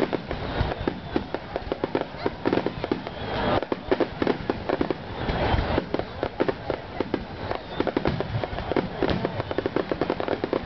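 Aerial fireworks bursting in rapid, overlapping succession: a dense string of bangs and crackles with no pause.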